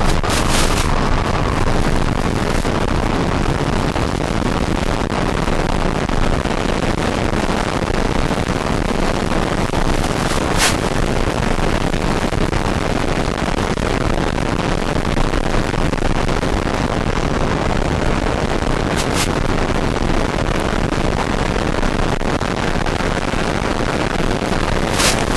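Steady, loud rushing wind noise on an onboard FPV camera's microphone in flight, with a few brief sharp clicks.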